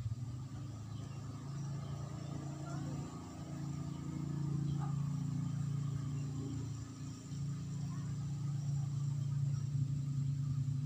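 A low, steady engine hum that starts abruptly, dips briefly about seven seconds in, then carries on before cutting off.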